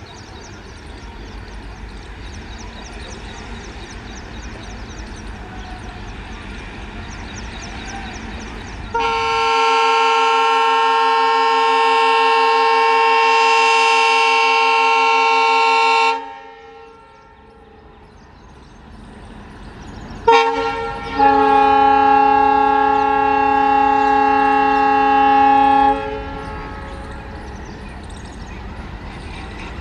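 WDP-3A 'Toaster' diesel locomotive with its 16-cylinder ALCO 251 engine idling and chugging, then sounding two long blasts of its multi-tone horn, the first about seven seconds and the second about five seconds after a short pause: the departure warning. The engine chugs on after the horn and swells slightly near the end.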